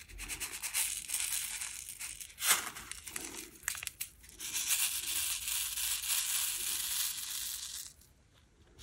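A small plastic zip bag of diamond-painting drills crinkling and being opened, with scattered clicks, then the tiny resin drills poured into a plastic tray, a steady fine rattle for about three seconds that stops shortly before the end.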